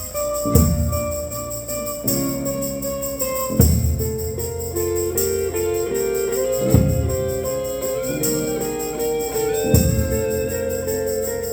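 An instrumental ensemble plays an arrangement: a melody of held and moving notes over a deep stroke whose pitch falls, coming about every three seconds.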